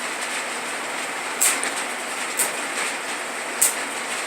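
Stick-welding arc burning on a Lincoln Electric rod, a steady frying hiss with three louder sharp pops about a second apart. It is a beginner's arc, struck and held.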